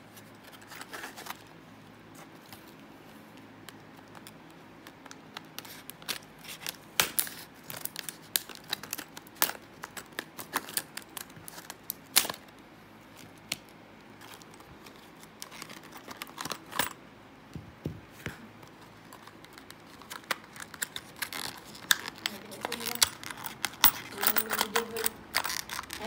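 Stiff clear plastic blister pack of a padlock being handled and pried open: irregular sharp crackles, clicks and snaps of the plastic, coming thicker toward the end.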